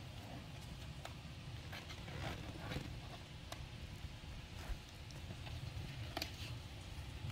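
Faint handling noise of a puppy nosing up against the phone: a handful of soft scattered taps and clicks over a low rumble.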